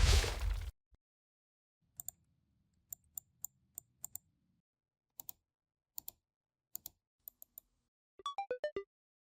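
A loud rushing burst that cuts off under a second in, then after a pause scattered single keystrokes on a computer keyboard, about a dozen over five seconds. Near the end comes a quick run of short tones stepping down in pitch.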